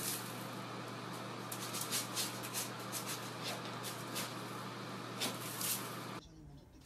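A cat digging in cat litter in a plastic litter box: irregular scrapes and rattles of litter over a steady low hum. The sound cuts off about six seconds in.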